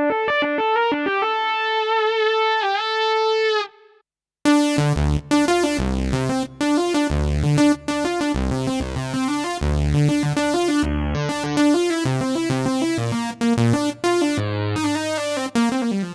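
Korg Kross 2 synthesizer playing a sound demo: first a held chord with wavering pitch, then after a brief break a busy rhythmic pattern of bass and chords that ends with a downward pitch bend.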